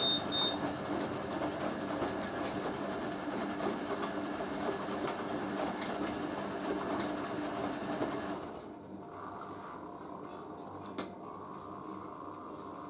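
Hoover A3060 washing machine's drum motor running steadily as it tumbles the load on the dilution rinse, then cutting off about eight seconds in so the drum pauses and only a quieter hum is left. A faint click near the end.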